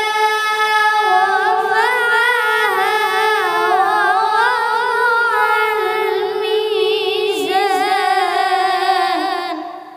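A boy reciting the Quran in melodic tilawat style: one long held phrase with wavering, ornamented pitch that ends near the end.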